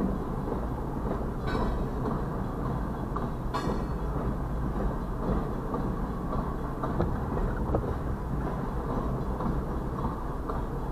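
Freight train of covered hopper cars rolling past a grade crossing: a steady low rumble of steel wheels on rail with scattered knocks and clanks, and two short high squeals in the first four seconds.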